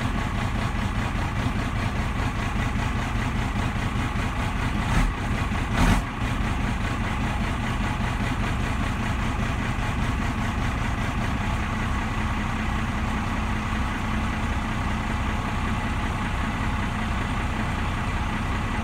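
First-generation Dodge Cummins 5.9 L 12-valve inline-six turbo diesel idling steadily after a cold start, heard from inside the cab through its hood stack. There are two short, louder bursts about five and six seconds in.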